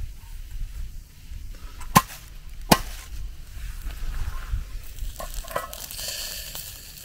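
Camp cooking gear being handled: two sharp knocks about 0.7 s apart, then a few lighter clatters.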